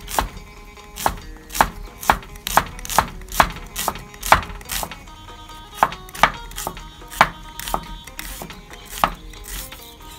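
Knife slicing shallots on a wooden chopping block: a series of sharp knocks, about two a second, thinning out near the end.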